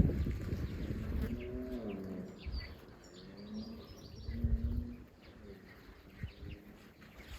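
Young hens (pullets) making two drawn-out, wavering low calls a couple of seconds apart, the soft noises of content chickens foraging, with faint high chirps of small birds.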